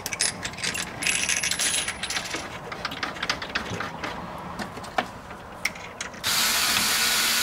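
Small metallic clicks and taps from a hand tool and fasteners as the strut brace's X brace is set in place and screwed down, with quick ratchet-like clicking in the first couple of seconds. About six seconds in, a steady hiss starts.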